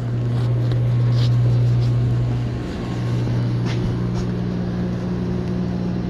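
Steady low electric hum of the geothermal heat pump's loop circulating pump, a well-type pump, running but moving no liquid; the speaker puts this down to the loop being low on liquid or a faulty pump. A slightly higher tone joins the hum about halfway through.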